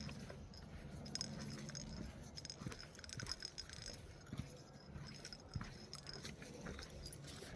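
Faint light jingling and scattered small clicks, over a low steady hum.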